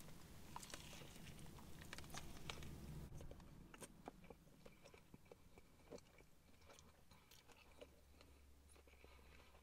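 Very faint chewing of a mouthful of crispy chicken burger: soft wet mouth clicks, busiest about two to three seconds in.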